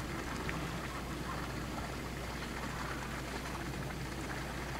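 Quiet background with a steady low hum under faint hiss, and no distinct event.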